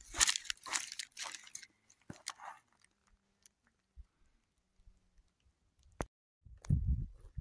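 Footsteps crunching on a gravel and scree trail, several quick steps that stop about a second and a half in. Near the end a low, uneven rumble starts.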